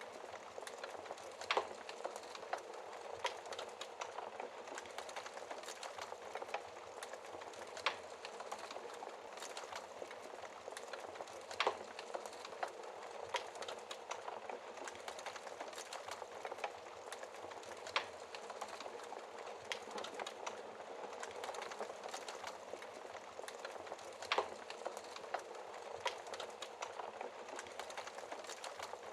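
Wood fire crackling in a fireplace: a steady hiss of burning with sharp pops at irregular moments, several seconds apart.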